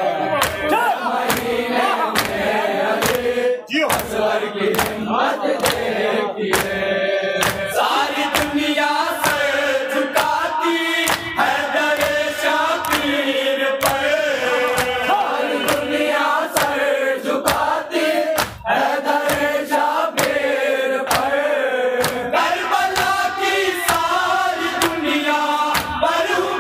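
A group of men chanting a Shia mourning salam in unison through a microphone and loudspeakers, over a steady beat of hand-on-chest strikes (matam) about twice a second.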